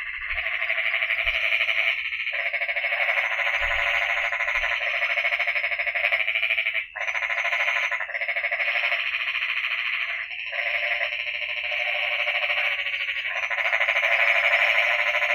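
A dense chorus of many frogs calling together, a steady wall of sound with a fast pulsing texture that dips briefly about seven seconds in.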